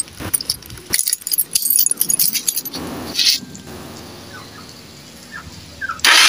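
Keys jangling and clicking as the motorcycle's ignition key is handled and switched on, then, about six seconds in, the electric starter engages and the engine starts suddenly and loudly: a test start with the battery and CDI freshly reconnected.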